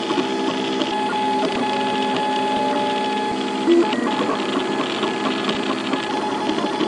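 Portabee 3D printer's stepper motors whining as the hot end moves back and forth filling in a honeycomb infill layer, the steady tones changing pitch with each move, with a short louder note a little before the middle.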